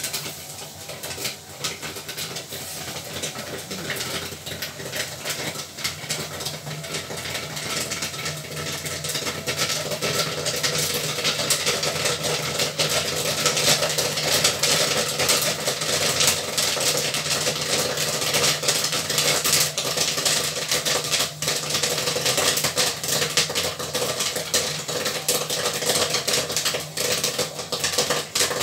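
Popcorn machine kettle popping corn: a dense stream of rapid pops and rattles over a steady machine hum, growing louder and busier about ten seconds in as the kernels reach full popping.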